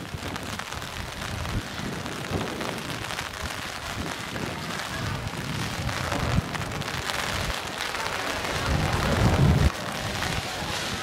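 Steady rain pattering on a wet cobblestone street. A louder low rumble swells about nine seconds in and cuts off suddenly.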